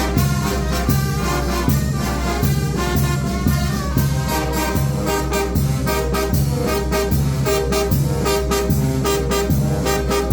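Mexican banda de viento (brass and wind band) playing, with trumpets and trombones over a bouncing low bass line and a steady drum and cymbal beat.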